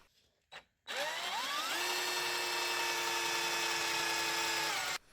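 Angle grinder switched on about a second in, its whine rising as the motor spins up, then running steadily at full speed; the sound cuts off abruptly near the end.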